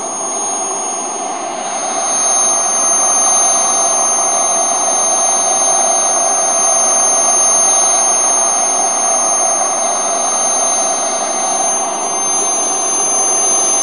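The gas turbine of an RC Eurofighter model jet running steadily: a loud rush with a thin high-pitched whine above it, growing slightly louder about two seconds in.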